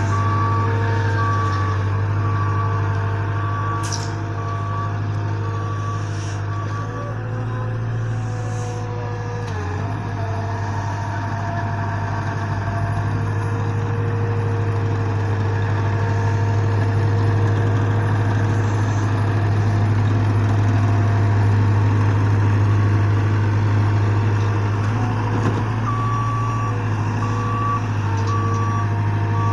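Ingersoll Rand SD-25D single-drum soil compactor running steadily while driven over sand, its engine giving a deep, even hum. Its reversing alarm beeps about twice a second at the start and starts again near the end.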